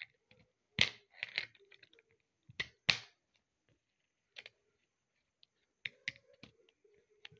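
Metal zipper pulls on a backpack clicking and clinking against a small lock fitting as fingers handle them, in several short clusters of sharp clicks.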